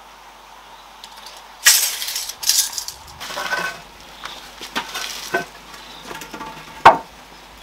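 Wooden planks being shifted and knocked against each other: a burst of scraping clatters about two seconds in, then scattered knocks, with one sharp knock near the end as the loudest sound.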